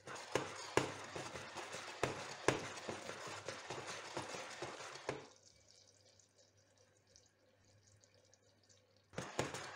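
Sugar syrup for caramel boiling hard in a stainless steel saucepan on an induction hob at full power: a dense crackling bubbling with many small pops. About five seconds in it drops to near silence, and it picks up again near the end.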